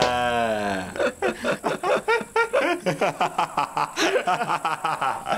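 A man laughing: a long drawn-out vocal sound that drops in pitch, then quick, rhythmic bursts of laughter, about four or five a second.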